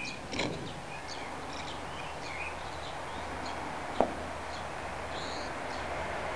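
Small birds chirping on and off, with short scattered calls, over a low steady hum. A single sharp knock about four seconds in is the loudest sound.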